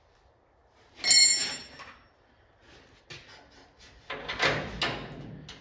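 A sharp metallic clink about a second in that rings briefly, then a few light clicks and a cluster of knocks and scrapes around four to five seconds in: tools and hardware being handled while fitting a nut on a bolt behind a car's front grille.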